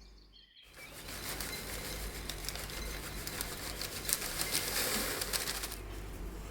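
A dense crackling hiss full of fine ticks, starting about half a second in and easing off shortly before the end.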